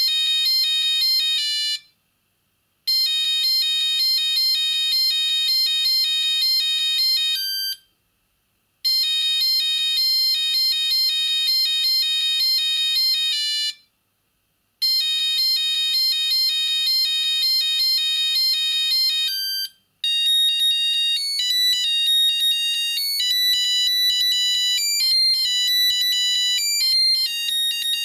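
Siemens C25 mobile phone playing a monophonic ringtone melody, a phrase of about five seconds repeated with about a second of silence between each. After about twenty seconds it switches to a different ringtone, which plays on without a pause.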